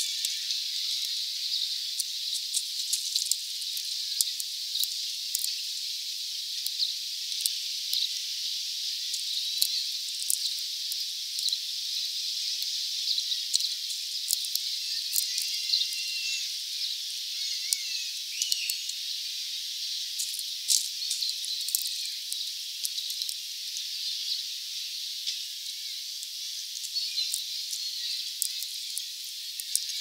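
Many sharp clicks and taps from a European greenfinch pecking at and cracking sunflower seeds on the feeder, over a steady high hiss. A few faint bird chirps come about halfway through.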